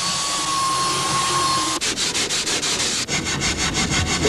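Electric sander running on wood with a steady whine, which stops about two seconds in. It is followed by quick, even back-and-forth strokes of a hand tool rubbing over wood.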